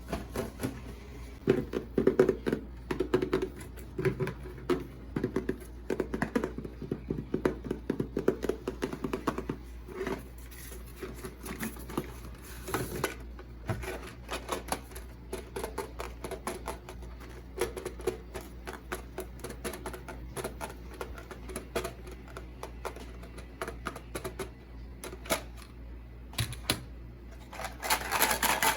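Irregular clicks and taps of small plastic toy pieces and packaging being handled and set down, over a low steady hum, with a louder rustle near the end.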